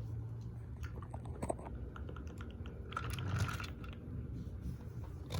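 Toy trains and a toy water tower being handled: a run of light clicks and taps, busiest between about one and four seconds in.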